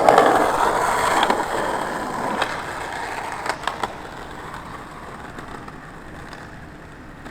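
Skateboard grinding: a loud scraping that fades away over the first few seconds, with a few sharp clacks, then the quieter rumble of the wheels rolling on.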